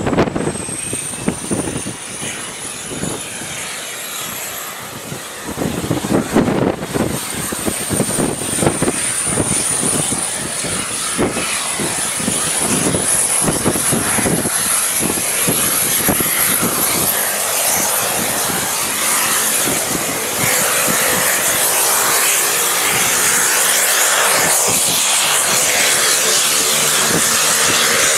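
Honeywell Garrett turboprop engine of a de Havilland Turbo Otter running up, its high turbine whine rising steadily in pitch as the power comes up and the sound grows louder. Wind buffets the microphone, strongest in the first half.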